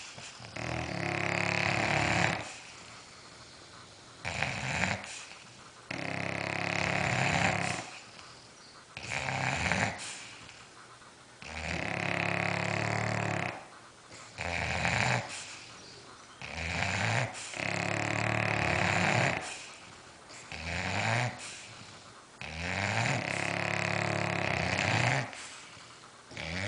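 Bulldogs snoring loudly in a steady cycle: a long rattling snore about every five and a half seconds, with a shorter snore between each pair.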